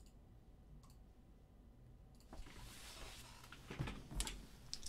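Faint handling noise in a small room: a couple of light clicks, then a rustling hiss starting about two seconds in and a few soft knocks near the end.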